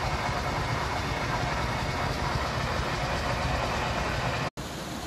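Steady rushing roar of the Jigokudani hot-spring geyser jetting steam. It breaks off for an instant about four and a half seconds in, then carries on a little quieter.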